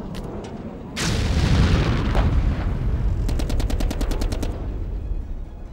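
Gunfire: a loud bang about a second in that dies away over a second or so, then a rapid burst of automatic fire at about ten shots a second, three to four and a half seconds in.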